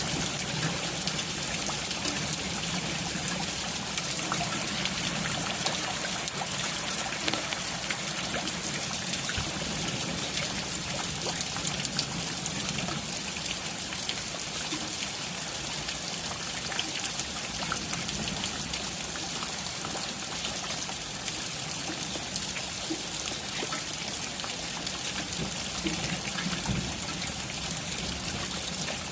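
Steady rain falling, an even hiss scattered with many small ticks of drops landing, with water trickling.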